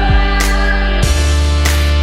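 Background music: sustained chords over a bass line, with a sharp beat about every second and a quarter.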